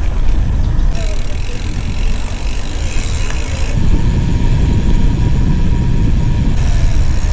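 Wind buffeting the microphone of a camera on a moving bicycle: a steady low rumble, with a higher hiss that comes in about a second in, drops out before the middle and returns near the end.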